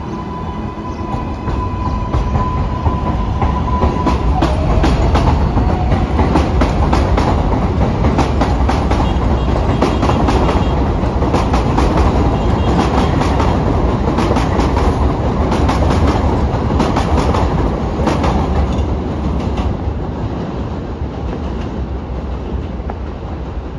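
New York City Subway 4 train going by on the Jerome Avenue Line, its wheels clattering over the rail joints, the sound building over the first few seconds and easing off near the end. A steady high tone is heard for the first few seconds.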